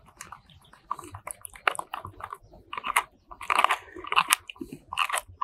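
A spoon stirring thick sour-cream sauce in a cup, with uneven scraping and wet clicking strokes against the cup's sides as the spices and mustard are mixed in.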